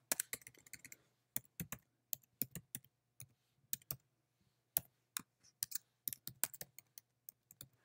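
Typing on a computer keyboard: irregular runs of key clicks, with a short pause about halfway through.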